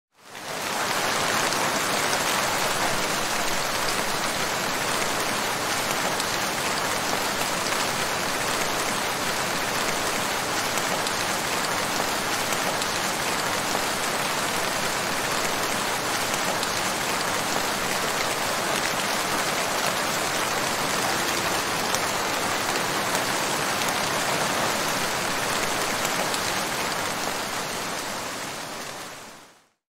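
Heavy rain falling steadily, a dense, even hiss of countless drops. It fades in at the start and fades out near the end.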